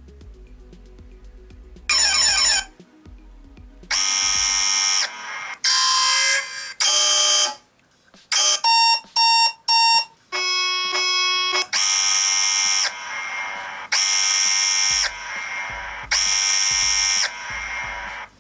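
Phone alarm tones previewed one after another: a short falling tone, several different buzzy alarm sounds, a quick run of short beeps, then three long buzzy alarm blasts about two seconds apart. Faint background music runs underneath.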